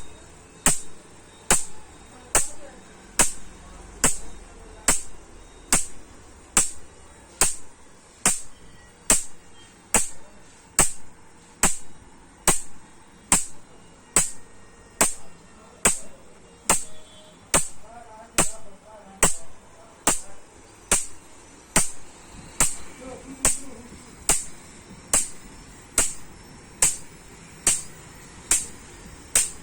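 A 12 kV electric fence energizer pulsing: a sharp high-voltage snap repeats evenly, a little more than once a second.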